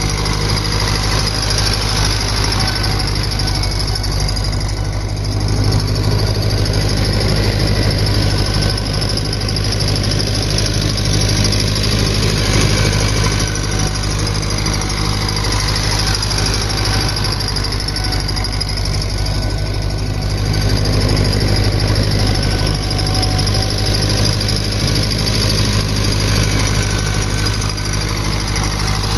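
1964 David Brown tractor engine running steadily under load while harrowing, swelling louder twice as the tractor comes nearer on its laps.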